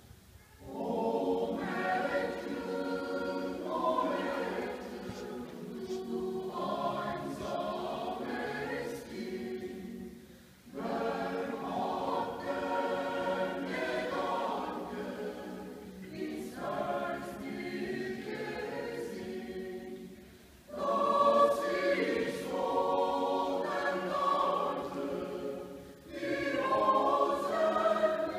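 Mixed choir of women's and men's voices singing unaccompanied in parts. The singing comes in phrases, with short breaks about ten and twenty seconds in, and each new phrase starts strongly.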